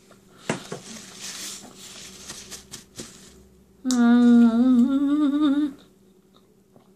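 A woman chewing a mouthful of food with soft wet mouth clicks, then a loud, wavering, long drawn-out moan of enjoyment lasting about two seconds, about four seconds in.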